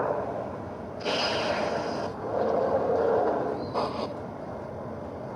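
Movie tornado sound effect: a rushing wind roar that swells and fades in waves, with a sharp hissing gust about a second in and a shorter one near the end of the third second.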